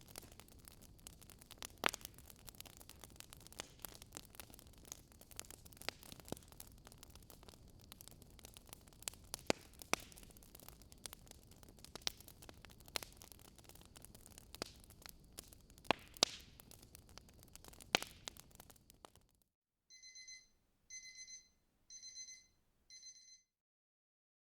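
Fireplace crackling with scattered sharp pops, which cuts off suddenly near the end. A digital watch alarm then beeps in four short bursts about a second apart, signalling the end of the 25-minute study period.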